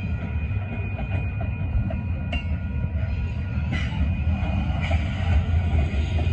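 Freight train of covered hopper cars rolling past: a steady low rumble of steel wheels on the rails, with a few brief sharp high noises from the cars.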